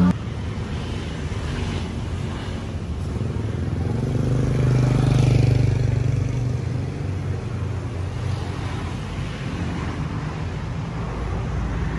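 Roadside traffic noise: a motor vehicle's engine passes, growing louder about four seconds in and fading away after about six seconds, over a steady low street rumble.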